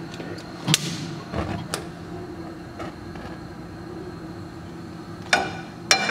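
A frying pan being set on a gas stove's metal grates: a few sharp metal knocks, one about a second in and two more near the end, over a steady low hum.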